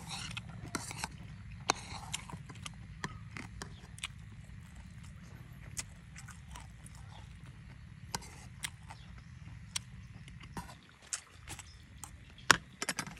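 A person eating: scattered sharp clicks and crisp crunches of chewing and of utensils, coming every second or so, with the loudest sharp knock near the end, over a steady low hum.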